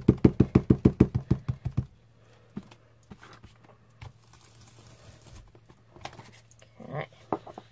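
Foam paint dauber being pounced rapidly through a stencil onto paper on a desk: a fast run of soft thumps, about eight a second, stopping about two seconds in. After that come a few quieter taps and handling sounds.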